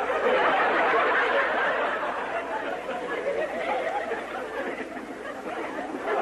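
Canned sitcom laugh track: a studio audience laughing and chattering together, loudest in the first couple of seconds, then dying down toward the end.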